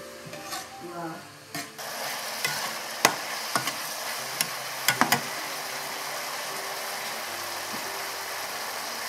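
Shredded carrots and meat sizzling in a metal wok, with a steady frying hiss that sets in about two seconds in. A metal spatula clanks and scrapes against the pan several times in the first half.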